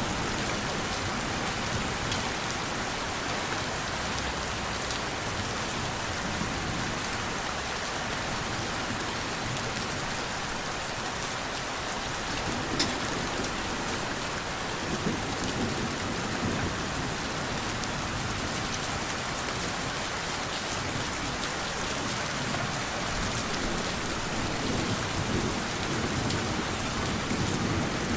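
Steady rain, with low rumbles of thunder swelling and fading at times.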